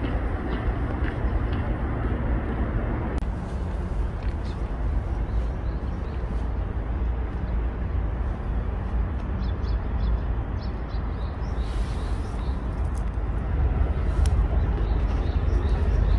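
Steady low rumble of wind buffeting the microphone, with a few faint ticks around the middle.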